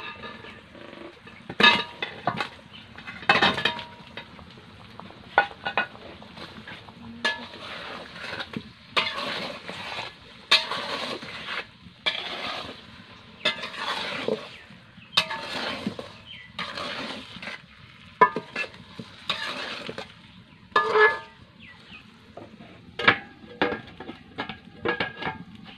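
A steel ladle stirring and scraping around an aluminium karahi of boiling sugar syrup and hog plums, making repeated clinks and scrapes over the bubbling of the syrup. Near the end a metal lid clinks onto the pan.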